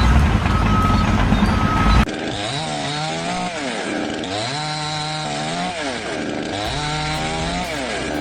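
A loud low rumble for about two seconds that cuts off suddenly. Then a small engine revs up and down three times, its pitch rising, holding briefly and falling each time.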